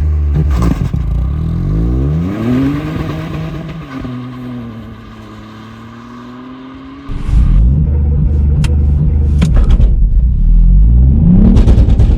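Ford Fiesta ST's turbocharged 1.5-litre three-cylinder engine under hard acceleration, its pitch climbing with revs, then easing off to a much quieter hum for a few seconds. About seven seconds in it turns loud again, and near the end the revs climb once more.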